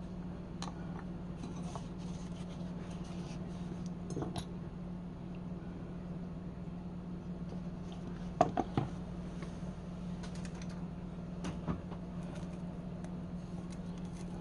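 Light handling clicks and taps, as of small hard objects being moved and set down, over a steady low hum, with three sharp knocks in quick succession a little past the middle and one more knock a few seconds later.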